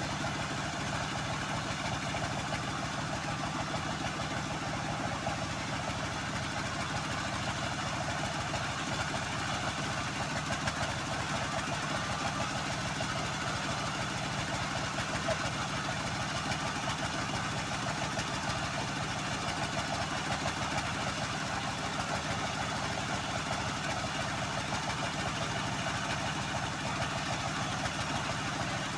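Homemade band sawmill running steadily, a constant mechanical drone with no let-up, as it saws through a long teak log.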